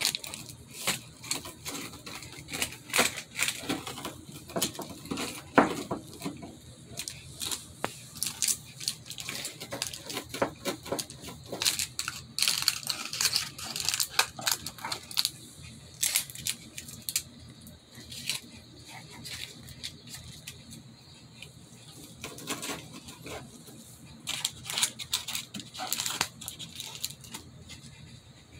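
A spatula scraping and cutting under pizza slices on a foil-lined pan, with the foil crinkling and crackling in irregular bursts.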